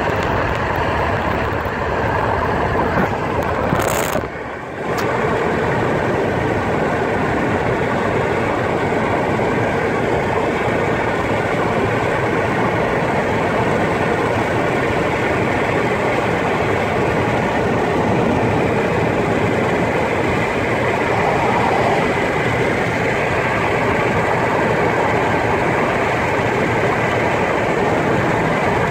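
Steady running noise of a moving vehicle: tyre, engine and wind rush. A brief knock about four seconds in, followed by a short dip in the noise.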